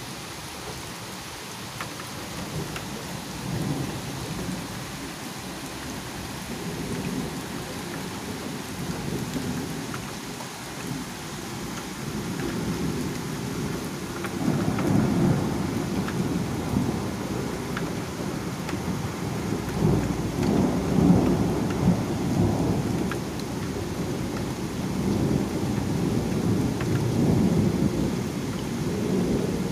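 Thunderstorm: steady rain with thunder rumbling low and long, growing louder about halfway through and swelling again twice toward the end.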